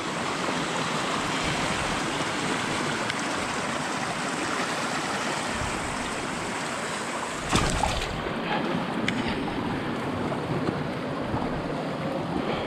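Shallow creek water running and splashing over rocks and a small cascade, a steady hiss, with a brief knock about seven and a half seconds in.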